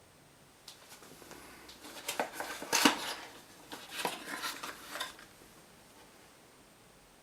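A run of light clicks and clatter from small hard objects being handled, loudest about three seconds in, then stopping.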